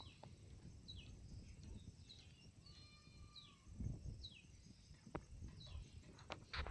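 Faint birdsong: short, high falling chirps repeated every half second or so, with a few held whistled notes near the middle, over a low rumble. A couple of sharp clicks come near the end.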